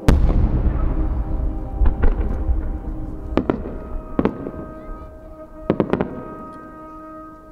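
Aerial firework shell bursting with a loud boom right at the start, echoing away over the next seconds, followed by several sharp cracks from further shells bursting. Music plays steadily underneath.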